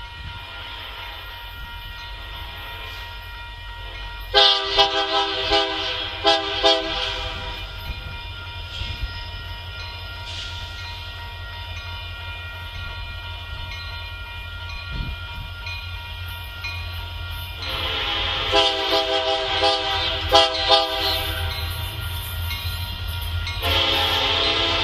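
Air horn of an approaching Union Pacific diesel freight locomotive. It sounds several tones at once in a quick series of short blasts about four seconds in, again with more short blasts a little past the middle, and once more near the end, over a steady low rumble.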